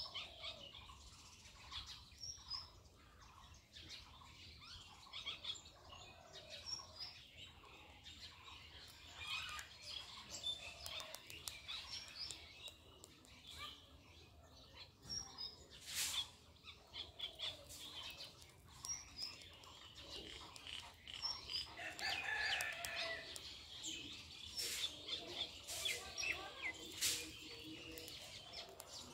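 Small birds chirping, many short overlapping chirps and calls, with a few sharp clicks scattered through the second half.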